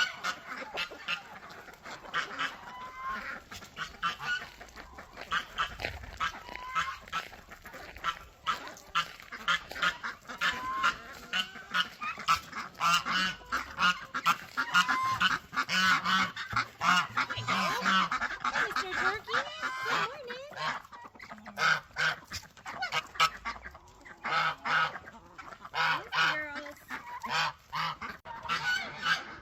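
A flock of domestic poultry calling continuously, many short honking and squawking calls overlapping with no pause.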